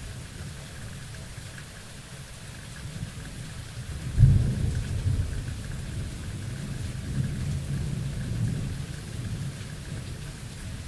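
Steady rain falling, then a sudden thunderclap about four seconds in, its low rumble rolling on for several seconds.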